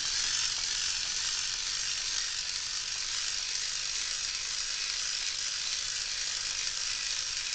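Gear train and motor of a Black & Decker 4 V cordless screwdriver spun fast by hand through a socket ratchet, making a steady whirring hiss. The motor is being driven as a generator to charge the screwdriver's dead battery.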